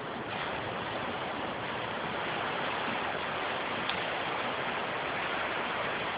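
Steady wash of ocean surf breaking on the beach, an even rushing noise.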